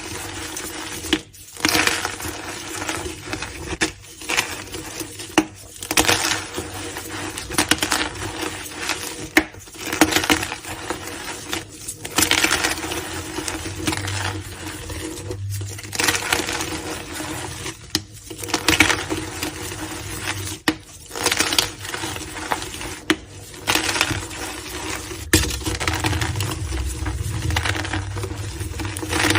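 Crunchy blocks of gym chalk being crushed, a run of crisp crunching and crumbling bursts one after another with brief pauses between them.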